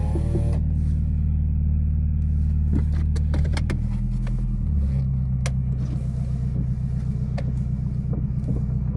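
1999 Toyota Camry engine running steadily, its tone changing about halfway through, with a few scattered sharp clicks; the owner describes the engine as already knocking and tapping.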